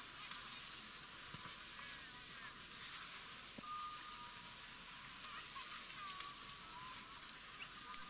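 Distant crowd on a ski slope: faint voices and children's calls over a steady hiss.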